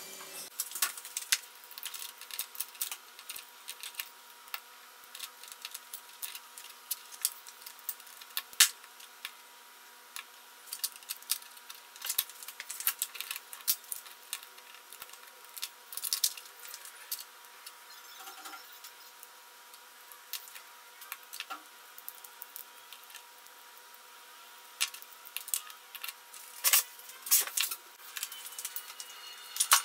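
Irregular light clicks and taps of small metal and plastic cordless-drill parts being unscrewed with a screwdriver and handled. A faint steady hum runs underneath.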